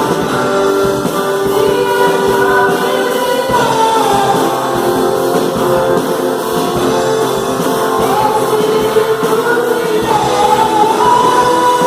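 A song with singing over instrumental accompaniment, the voices holding long notes that slide between pitches.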